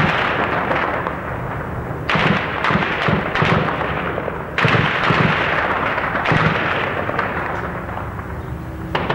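Ammunition cooking off in a burning T-72 tank's turret: a loud, continuous rushing, crackling noise that surges suddenly about two seconds in, again near the middle, and just before the end.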